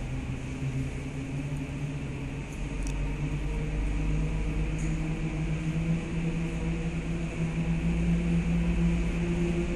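Steady mechanical hum inside a large aerial tramway cabin running along its track ropes. A low tone steps up slightly in pitch and grows louder about four seconds in.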